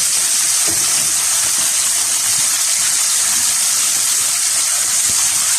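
Chunks of beef searing in a hot pot, sizzling steadily with a loud, even hiss that cuts off abruptly at the end.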